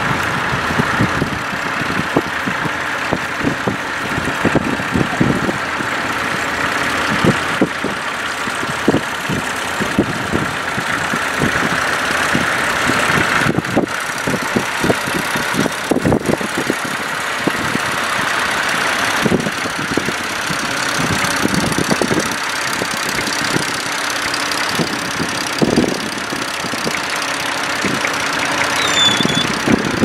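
Vintage tractor engines running as they pull ploughs through stubble, with irregular low thumps throughout.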